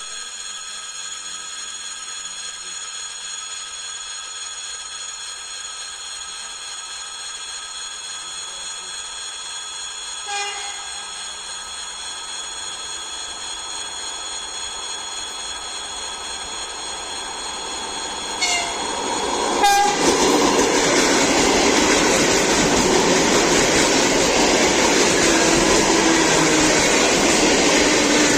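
A train approaching with a steady high whine, giving short horn toots about ten seconds in and twice more just before it arrives, then passing close by with loud wheel and running noise, with a slowly falling tone near the end.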